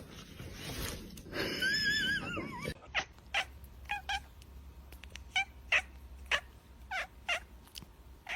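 A cat meowing: a wavering, rising-and-falling cry near the start, then a run of short, repeated meows, about two a second.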